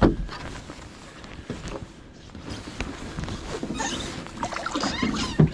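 Handling noise on a fishing boat: a heavy thump, then scattered clicks, knocks and rustling as gear is moved about, busier toward the end and closing with a sharper knock.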